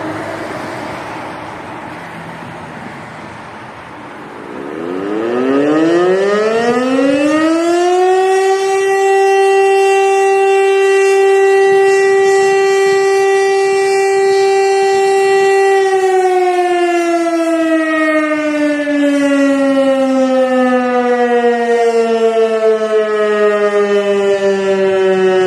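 DS977 siren sounding a test alarm. About four seconds in it winds up to a steady high tone, holds it for about eight seconds, then slowly winds down in pitch.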